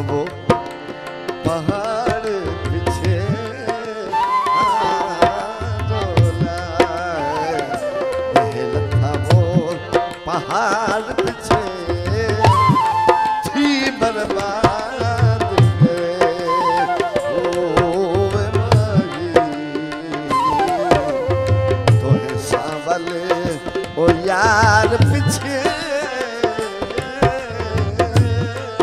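Folk song with tabla keeping a steady beat and a man singing long, wavering melodic lines.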